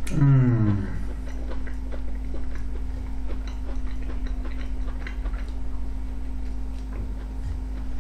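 A man chewing fried porcini mushrooms, with many small soft mouth clicks, over a steady low hum in the room. It opens with a short hum from his voice, falling in pitch, lasting under a second.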